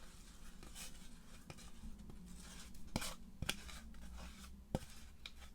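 A screw being twisted by hand into a diorama base to bore a post hole: faint scraping and creaking, with a few sharp clicks about three seconds in and again near the end.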